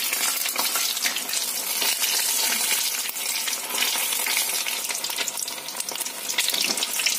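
Masala-marinated fish deep-frying in hot oil: a steady, dense crackling sizzle.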